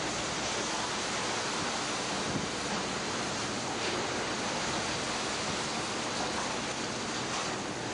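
Steady, even rushing noise of wind and open sea, with no distinct engine sound standing out.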